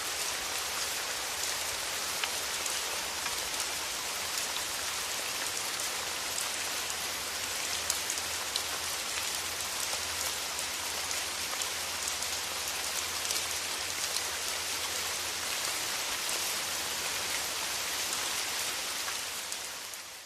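Steady rain falling, a dense even hiss scattered with small sharp drop ticks, fading out near the end.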